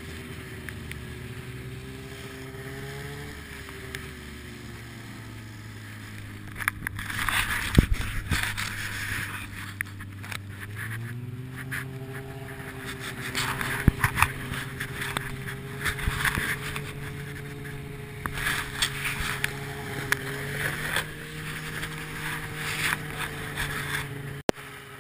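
Polaris Indy Widetrak two-stroke snowmobile engine running steadily while hauling six riders. Its pitch dips about four seconds in and climbs again around eleven seconds, and from about seven seconds on loud bursts of rushing noise come and go over it.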